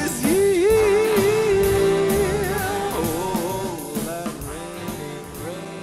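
Jazz orchestra playing the closing bars of a ballad. A long held note with vibrato is followed by shorter wavering phrases, and the music grows quieter toward the end.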